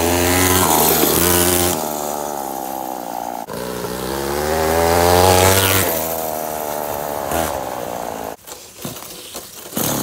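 A homemade scooter's Homelite 42cc two-stroke chainsaw engine revving under throttle as the scooter rides past. The pitch climbs, dips, then climbs again to a peak about five and a half seconds in and falls away. Near the end the engine sound drops off sharply, then picks up again.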